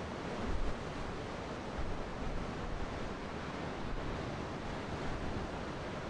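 Ocean surf breaking and washing on the shore in a steady rush, with wind buffeting the microphone in brief low gusts.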